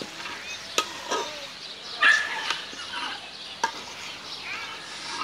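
Birds calling, many short chirps that rise and fall in pitch, with a few sharp clicks in between.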